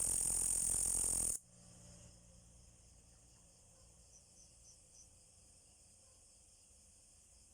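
A green insect's loud, steady, high-pitched buzzing call that stops abruptly about a second and a half in. After that only a faint high insect chorus remains, with four soft chirps around the middle.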